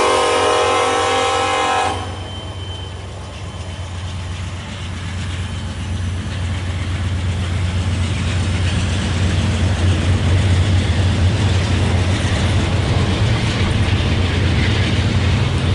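Freight train locomotive air horn sounding a chord that cuts off about two seconds in, followed by the train rolling by with a low engine rumble and wheel noise that grows steadily louder.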